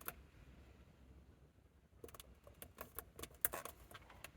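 Faint, irregular clicks and crackles over a low steady hum, sparse at first and coming thick and fast from about halfway through.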